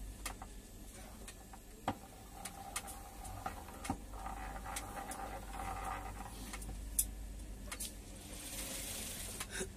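Old cast-iron hand-cranked grinding wheel being handled and turned: faint scattered metallic clicks and knocks from its crank and gearing, with a faint steady whirr for a few seconds in the middle. A soft hiss comes near the end, over a low steady hum.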